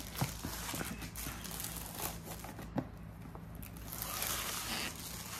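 Clear plastic shrink-wrap being peeled and pulled off a cardboard box, crinkling and crackling with small irregular clicks. It is denser about four seconds in.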